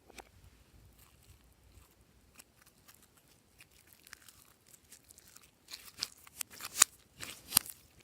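Small crisp clicks and crackles, scattered and faint at first, then a run of loud crunching crackles in the last two seconds.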